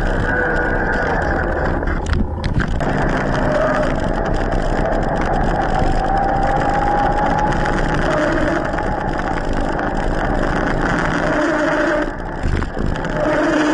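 Steady rushing wind and tyre noise on the microphone of a camera riding on an e-mountain bike along a paved road, with a faint wavering whine in it. The noise drops back briefly near the end.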